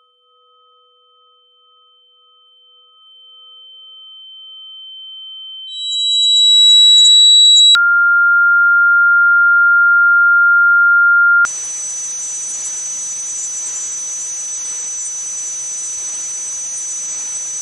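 Simulated tinnitus sounds played one after another. A faint high ringing tone with a soft pulsing beneath it grows louder into a loud high-pitched tone. About 8 seconds in, a steady lower tone takes over, and about 11 seconds in it gives way to a steady hiss with a thin high whine over it.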